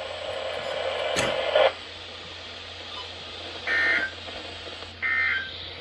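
NOAA Weather Radio broadcast over the receiver: a steady hiss with a sharp click a little over a second in, then two short bursts of two-tone digital data about a second apart near the end. These are the SAME end-of-message code that closes the weekly test.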